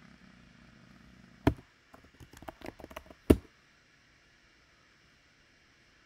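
Computer keyboard typing: one sharp keystroke, then a quick run of key clicks, ending in the loudest single key press as the "dbt --version" command is entered.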